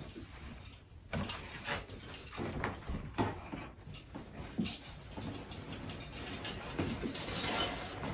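Ribbon garland being pulled off an artificial Christmas tree: irregular rustling and crinkling of ribbon and plastic branches, with small knocks of handling, louder near the end.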